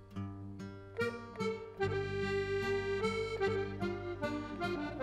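Accordion music playing a melody over a low held accompaniment, growing louder about two seconds in.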